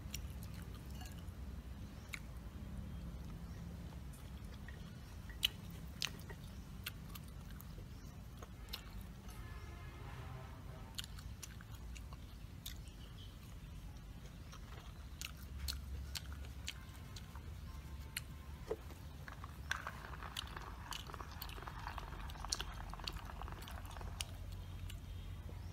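Close-mic chewing of tough, chewy cheek meat, with many scattered wet mouth clicks and smacks.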